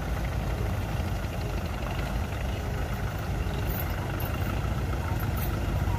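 Kubota M6040SU tractor's diesel engine running steadily as the tractor, on large cage wheels, sits bogged in mud.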